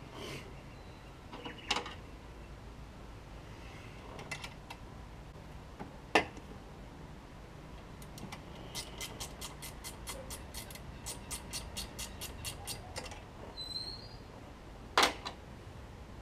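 Hand work on a car engine bay: scattered metal clicks and knocks of tools and fittings, two of them louder, and midway a run of quick even clicks, about five a second for some four seconds, as a fitting is tightened.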